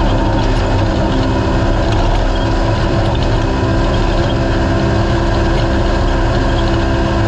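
Naturally aspirated race UTV's engine running at a steady pitch, with rattle and road noise mixed in.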